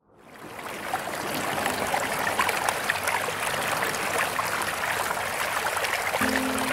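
Fountain jets splashing and pattering into a basin, fading in over the first second. Soft music begins near the end.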